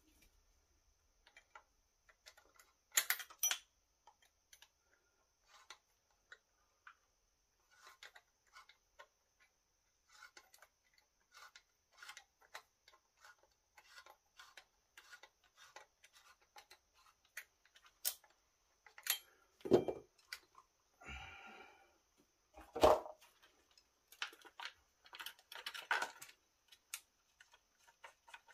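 Small metallic clicks and ticks as the bar and chain of an Echo CS-4310SX chainsaw are handled and the chain is tensioned with a small tool, with a few louder knocks scattered through.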